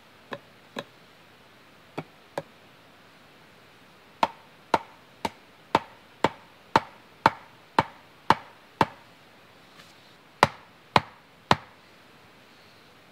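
A hand tool striking wood in a series of sharp chopping or hammering blows. It starts with two pairs of lighter blows, then a run of about ten harder blows at roughly two a second, and after a short pause three more.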